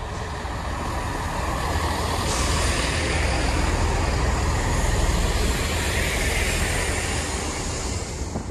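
Chiltern Railways Class 165 diesel multiple unit running along the platform: a steady engine and wheel rumble that swells to its loudest about halfway through, then eases off.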